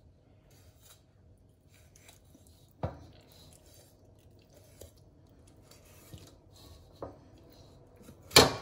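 Kitchen knife scoring a whole raw chicken in a large pan, its blade knocking sharply against the pan: one clear clack about three seconds in, a fainter one about seven seconds in, and the loudest just before the end, with quiet handling between.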